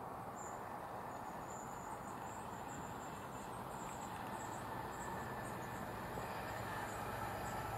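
Distant Class 70 diesel locomotives approaching, a low steady rumble that grows slightly louder toward the end, with faint high chirping over it.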